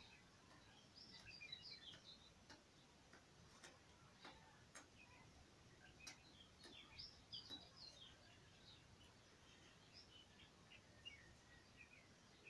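Near silence: faint bird chirps in scattered clusters, with a few faint clicks.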